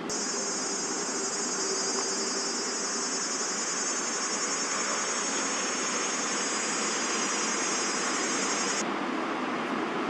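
A steady high-pitched insect drone over a background hum of city traffic; the drone cuts off suddenly near the end.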